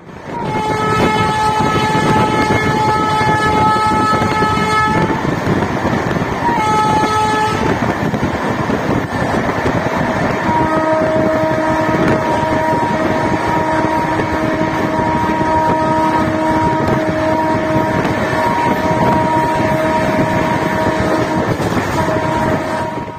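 Train running at speed with the steady rush and rumble of the coaches, while the WAP7 electric locomotive's horn sounds: a blast of about five seconds, a short one a moment later, then a longer, lower-pitched blast of about eleven seconds.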